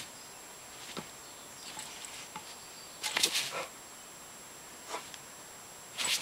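Adult dog and puppy playing, mostly quiet: a few faint clicks and scuffles, a short breathy burst about three seconds in, and another near the end.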